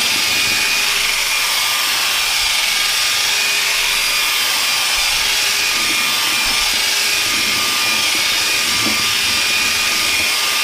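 Black & Decker cordless drill running steadily, spinning a toilet brush in a bowl of foamy bleach water: a constant motor whine over the churning, sloshing water.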